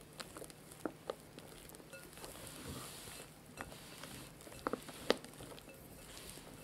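Wire whisk folding stiff meringue into egg-yolk sponge batter in a glass bowl: soft wet squishing, with a few light irregular clicks of the wires against the glass.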